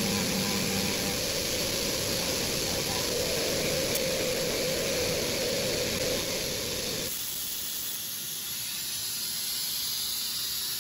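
CNC milling machine's end mill cutting into a wooden blank, a steady noisy cutting sound over a constant hiss. About two-thirds of the way through the cutting noise stops abruptly and only the steady hiss remains.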